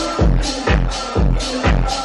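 House-style electronic dance music with a steady four-on-the-floor kick drum, about two beats a second, and sustained synth tones.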